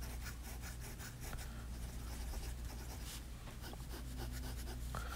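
Steel medium nib of a Waterman Hemisphere fountain pen scratching softly across paper in a run of quick strokes as it draws loops and lines.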